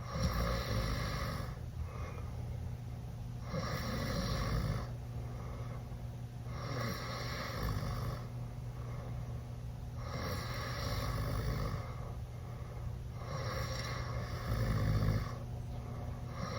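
A teenage boy snoring loudly with his mouth open after drinking. The raspy snores repeat steadily, one about every three and a half seconds, five in all.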